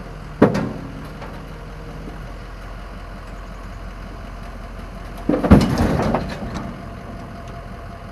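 Dump truck idling while its hydraulic bed, loaded with riprap stone, is lowered. There is a sharp knock about half a second in, and a louder clunk and rattle about five seconds in as the stone-filled bed comes down.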